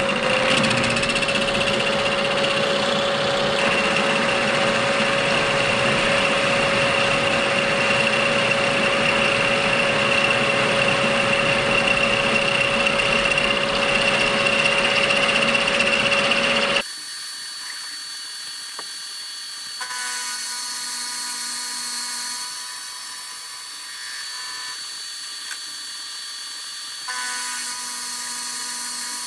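Vertical milling machine running, its end mill cutting along the edge of a 30 mm by 6 mm steel flat bar held in the vise: a steady whine over loud cutting noise. About two-thirds of the way through, the sound drops suddenly to a quieter, lighter cut with several steady whining tones that come and go.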